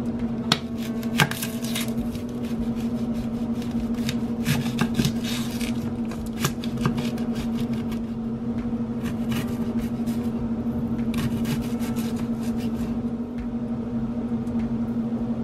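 Chef's knife slicing an onion on a wooden cutting board: quick irregular runs of knife taps against the board that stop near the end, over a steady low hum.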